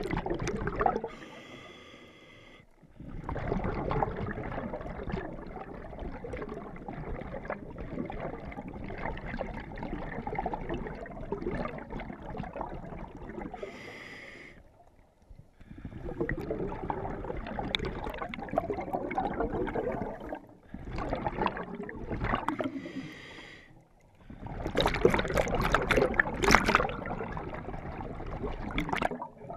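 Scuba diver breathing through a regulator underwater. A short hissing inhale through the demand valve alternates with a long noisy burst of exhaled bubbles, several times over.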